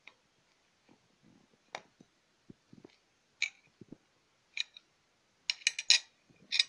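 A spoon clinking lightly against a ceramic plate while cutting into a piece of cake: a few single clicks about a second apart, then a quick run of louder clinks near the end.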